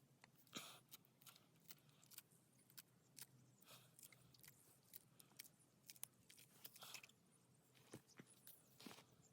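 Near silence with faint, scattered short clicks and brief rustles, about one or two a second.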